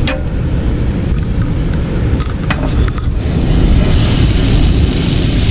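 Wind buffeting the microphone with a steady low rumble, and a sharp click at the start. About three seconds in, butter dropped into a hot non-stick frying pan on a portable gas stove starts sizzling, a hiss that carries on under the wind.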